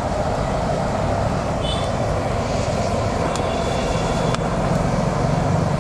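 Tornado wood turbo stove burning with its electric blower running: a steady rushing roar of forced air and flame. Two sharp clicks come a second apart in the middle.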